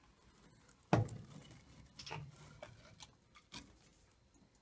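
Light knocks and scrapes of a plastic dip tube being pulled up through a water heater's cold-water inlet: one sharper knock about a second in, then several fainter taps.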